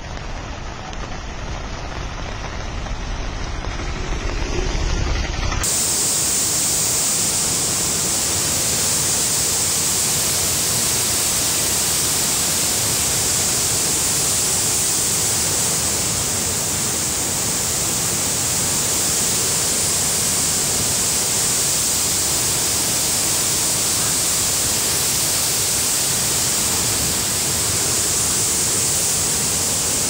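Steady rushing noise of fast-flowing floodwater. About five and a half seconds in it switches abruptly to a louder, hissier rush that holds steady.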